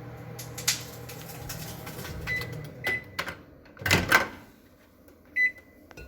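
Microwave oven running with a steady hum that stops about two and a half seconds in, with short beeps around the stop, then the door clunking open about four seconds in and another beep near the end.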